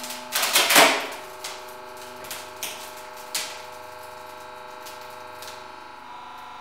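Spruce board cracking and splintering as it fails in bending under a hydraulic press: two loud cracks within the first second, then a few fainter crackles and ticks that thin out. A steady hum runs beneath.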